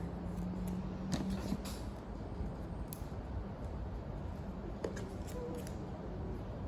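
Paper cutouts being handled at a craft table: a few scattered small clicks and rustles over a steady low hum.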